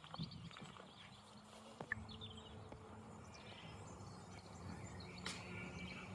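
Faint outdoor ambience of small birds chirping and twittering here and there, over a low steady rumble.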